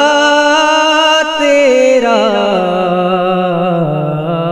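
A voice singing a naat unaccompanied, holding one long drawn-out note with a slight waver that slides lower about two seconds in and steps down again near the end.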